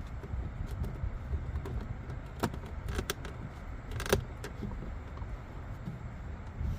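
A few sharp clicks and rattles as the wiring connectors are handled and plugged into the door panel of a 2006 Dodge Ram 1500, the loudest about four seconds in, over a steady low rumble.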